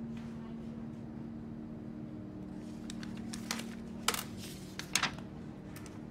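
Steady low room hum, with a handful of short clicks and light rustles in the second half, the two loudest about four and five seconds in.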